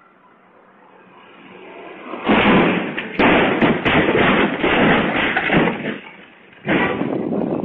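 Car crash: a loud impact about two seconds in, then a run of banging and clattering, with another impact near the end.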